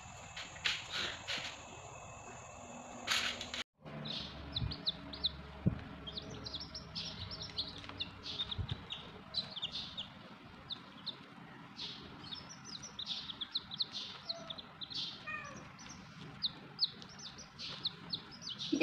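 A brood of baby chicks peeping: many short, high cheeps in quick succession from about four seconds in, with a few light thumps. Before that, a few brief scuffling noises.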